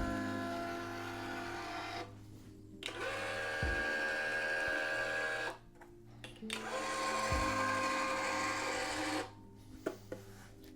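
Wise 2086 electronic stringing tension head's motor running in three runs of about two to three seconds each, with short pauses between them. A low knock comes during the second and third runs.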